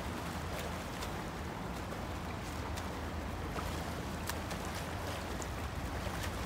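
Poolside water sounds: light, scattered splashes of a swimmer's arm strokes and finned kicks over a steady low rumble.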